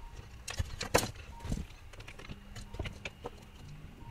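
Tools and small metal parts handled on a workbench: a few scattered clicks and knocks, the sharpest about a second in.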